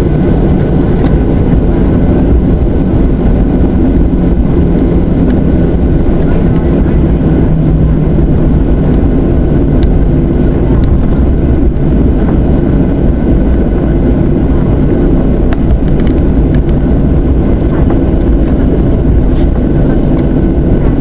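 Cabin noise of a Boeing 737-700 taxiing, its CFM56-7 turbofan engines running steadily: a constant loud rumble with a low hum and no spool-up.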